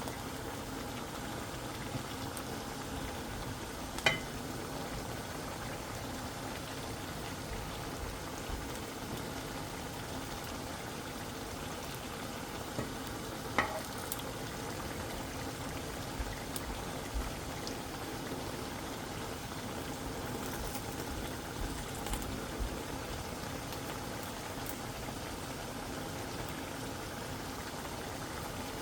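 Webfoot octopus and thin-sliced beef brisket frying in a pan with a steady sizzle, broken by a couple of sharp clinks, about four seconds in and again near the middle.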